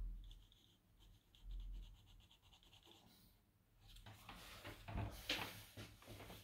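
Graphite pencil hatching on paper: quick, faint scratching strokes laying down dark shading, getting denser and louder in the last couple of seconds.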